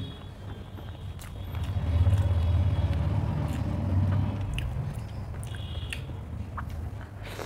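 Close-miked chewing, with handmade roti being torn and dipped into egg curry by hand, small clicks and mouth noises. A low rumble swells about two seconds in and fades after a few seconds.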